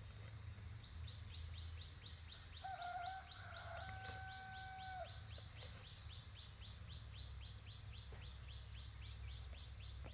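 A rooster crows once, a single long call of about two seconds, over a faint high chirping that repeats rapidly, about four times a second.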